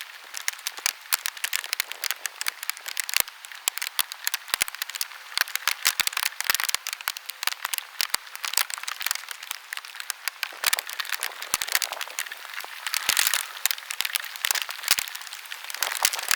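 Typhoon rain: a dense, irregular patter of drops striking close to the microphone, over a steady hiss of rain.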